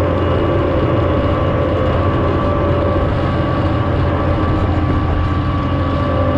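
Horsch Terrano 6FM cultivator working through stubble at speed: its tines and wheel scraping and rattling through the soil in a steady, dense rush, under the constant drone of the towing Fendt 936 tractor, with a few held tones running throughout.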